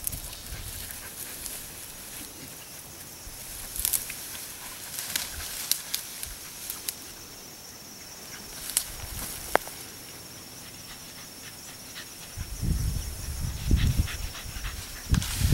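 Light rustling in grass and brush with scattered sharp ticks over a faint steady high whine. Low rumbling bumps come in about twelve seconds in.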